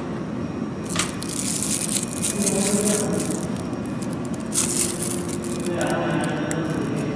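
Scraping and rattling from small parts and tools being handled on a laser welding machine during a lens change, in two bouts, over a steady machine hum.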